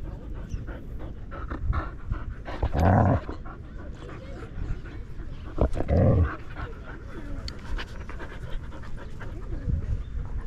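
A husky panting right at the microphone she is wearing, steady quick breaths throughout, with two louder short sounds about three and six seconds in.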